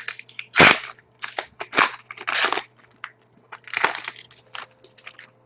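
A trading card pack wrapper being torn open and crinkled, in a run of sharp crackles, the loudest about half a second in and again near the middle.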